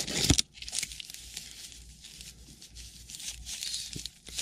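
Trading card packs crinkling and rustling as they are handled and taken out of their box, loudest in a burst right at the start.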